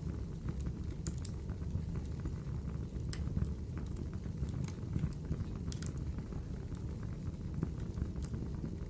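Wood fire burning in a fireplace: a steady low rumble of flames with scattered sharp crackles and pops from the burning wood.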